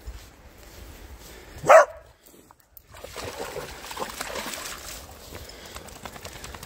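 A Brittany spaniel gives one short, sharp bark, then splashes through shallow river water for a couple of seconds.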